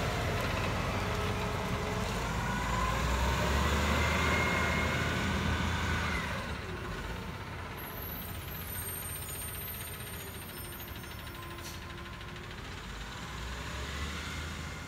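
School bus engine pulling away from a stop, its pitch rising as it gathers speed over the first six seconds, then dropping to a quieter, steady rumble as the bus drives off.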